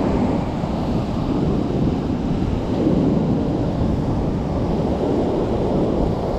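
Ocean surf breaking and washing up the beach, mixed with wind buffeting the camera microphone: a steady, deep rushing noise.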